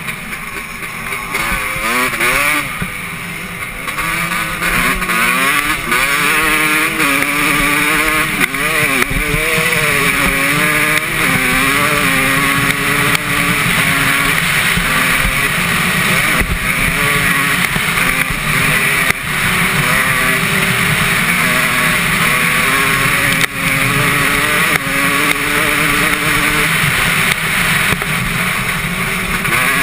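Motocross bike engine on the move, its pitch repeatedly rising and falling as the throttle is worked and gears change, under a steady rush of wind and riding noise.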